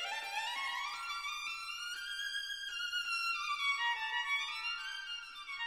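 Background music: a single sustained melody line that climbs and then slides back down over a few seconds.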